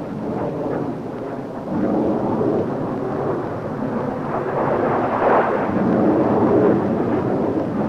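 Jet roar of an Ilyushin IL-62 airliner passing by. The noise builds about two seconds in, peaks around the middle and eases off a little toward the end.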